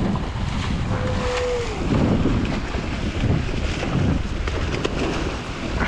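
Wind buffeting the microphone over ocean surf, with a short steady tone about a second in.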